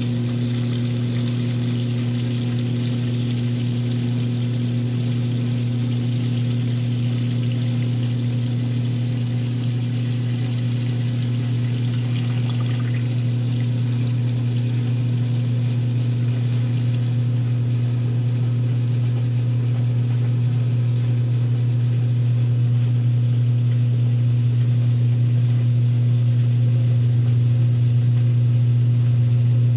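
1962 RCA Whirlpool washing machine running with a steady motor hum while water rushes through it; the water sound cuts off about seventeen seconds in and the motor keeps running, slightly louder toward the end.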